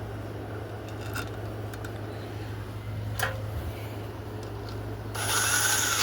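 A few light clicks of small parts and screws being handled. Then, about five seconds in, a cordless drill/driver runs for about a second with a whine, tightening the charging coil's small mounting screws. A steady low hum runs underneath.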